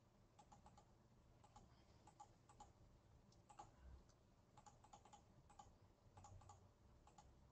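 Faint computer keyboard typing: irregular light key clicks over near silence.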